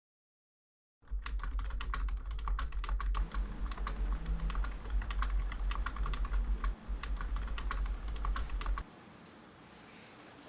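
Typing on a computer keyboard: rapid, irregular key clicks over a steady low hum, starting about a second in and stopping near the end.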